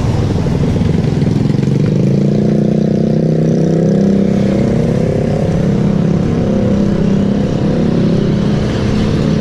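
A motor vehicle's engine running steadily at a constant low hum, with road noise.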